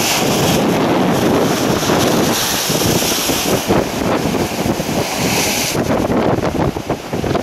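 Strong storm wind buffeting the microphone over the steady wash of heavy surf and surge water. The bright hiss thins out about six seconds in.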